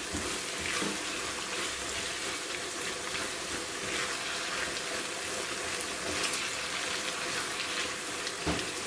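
Mushrooms and vegetables frying in a wok, a steady wet sizzle as the mushrooms give off their water, with faint scattered clicks from stirring.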